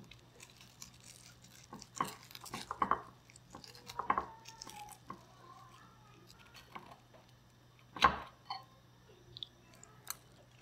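The crisp beer-battered coating of a freshly fried barramundi fillet crunching as it is broken into: a scattering of short crackles and clicks, the sharpest about eight seconds in.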